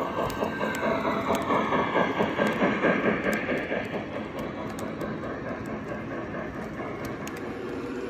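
Model steam locomotive running past on its track, with a rapid rhythmic clatter of wheels and drive, loudest as the engine goes by in the first few seconds. The passenger cars then roll past more evenly.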